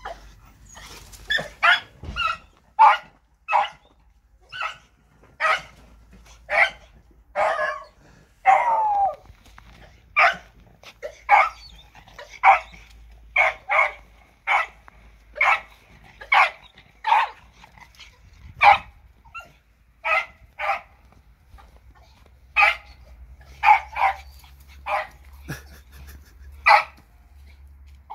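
Beagle barking over and over, about one bark a second, with one longer, drawn-out bark about eight seconds in.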